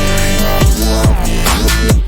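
Electronic dance music with a heavy beat of falling bass drum hits and sweeping synth.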